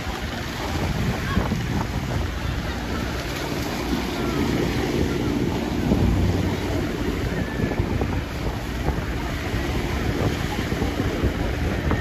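Small waves breaking and washing up on a sandy shore, with wind rumbling on the microphone.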